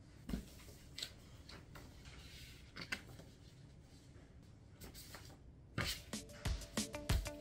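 Faint rustling and handling of a fabric backpack and a card folder of photos, with a few light knocks. About six seconds in, background music with a steady beat starts.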